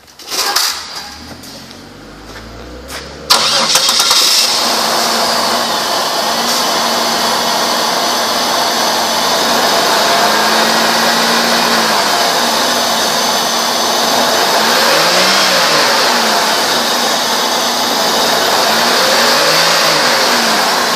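A Buick 3800 Series II V6 engine is started: it catches about three seconds in, with a sudden jump in loudness, then runs steadily.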